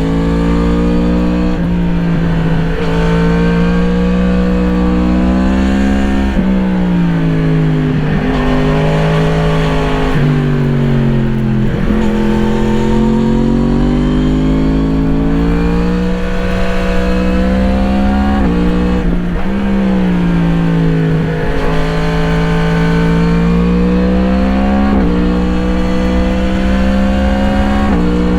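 2017 Yamaha MT-10's crossplane inline-four engine through an Akrapovič slip-on exhaust, pulling hard with its pitch climbing and stepping down sharply at each gearshift, several times over. In between it eases off and picks up again, over a steady low wind rumble.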